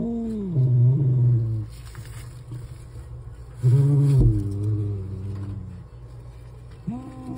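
Male domestic cat giving long, low, drawn-out yowls, each rising and then sliding down in pitch. One fades out about a second and a half in, another comes about four seconds in, and a third starts near the end.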